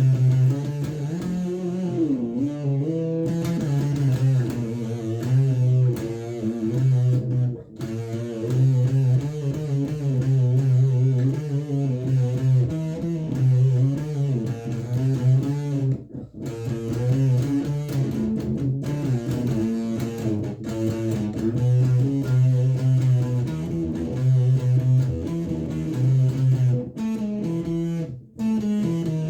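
Electric guitar played through a Behringer Super Fuzz pedal and a Sony stereo, an improvised solo with bent notes over a repeating low riff. The playing stops briefly a few times.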